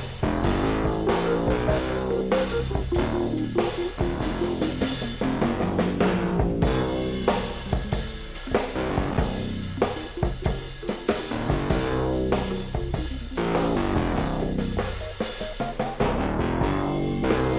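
Background rock music with a steady drum-kit beat, bass drum and snare, over guitar.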